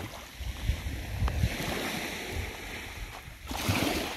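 Wind buffeting the microphone in uneven gusts over the wash of shallow sea water at the shoreline, with a brief louder rush of noise near the end.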